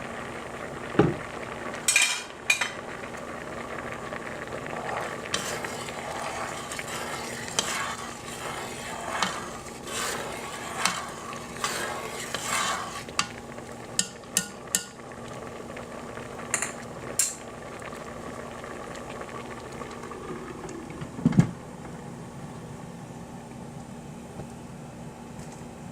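A utensil stirring rice in a pot of boiling water, with irregular scraping and sharp knocks against the pot, over a steady low hum. The stirring dies down, and a single heavier knock comes late on.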